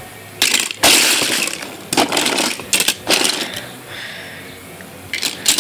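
Diecast toy cars clinking and clattering against one another as a hand rummages through a box full of them, in several separate spells, the longest about a second in.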